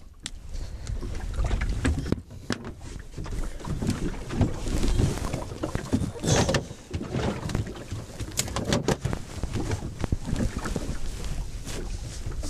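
Wind buffeting the microphone aboard a small open wooden boat at sea, a gusting low rumble, with scattered knocks and clatter from tackle being handled in the boat.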